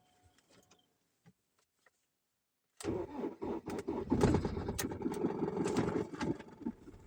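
Ford 4600 tractor engine cranked and starting, coming in suddenly about three seconds in and running rough and uneven as it catches.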